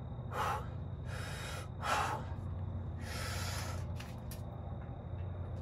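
A man breathing hard between weightlifting sets: four forceful breaths in the first four seconds, over a steady low hum.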